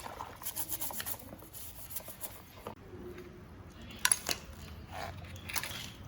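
Small metal parts and hand tools being handled, with a run of light rapid clicks at first and two sharp metallic clicks later, the first of them the loudest.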